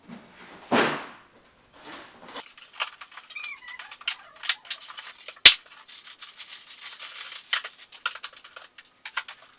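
A cardboard box being opened and unpacked by hand: two scrapes of the box flaps, then a run of crackling and crinkling of packaging paper, with one sharp snap about five and a half seconds in.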